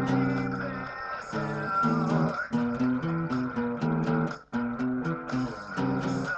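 Acoustic guitar strummed in chords, with a brief stop about four and a half seconds in before the strumming starts again.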